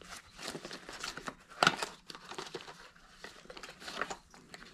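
Gloved hands rustling a cardboard box of 20-gauge shotgun shells and drawing a shell out: irregular crinkling and small clicks, with one sharper click a little under two seconds in.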